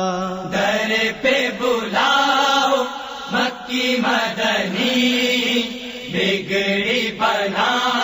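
A voice singing an Urdu naat in a chanting style, its phrases wavering in pitch and breaking every half second or so.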